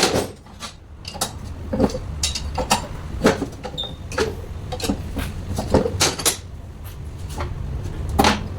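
Irregular knocks and clatter of metal parts and tools being handled, over a steady low hum.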